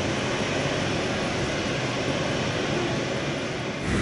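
Steady airport apron noise of aircraft and ground equipment, heard from inside the terminal, with no single event standing out. Near the end it switches abruptly to a louder, steady aircraft cabin hum.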